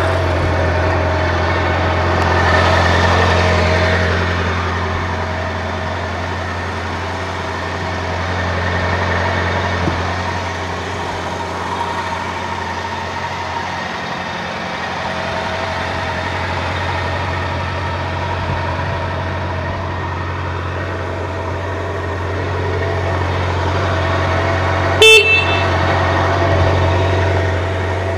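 A 2003 Honda CB750 Nighthawk's air-cooled inline-four idles steadily just after being started, through its factory 4-into-2 exhaust, with the revs rising briefly a couple of times. About 25 seconds in there is one short, loud horn beep.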